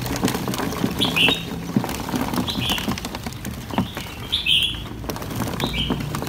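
A small bird chirping over and over, short high two-part notes that drop in pitch, about one every second and a half. Light rustling and clicks run beneath as a hand moves through leafy vines.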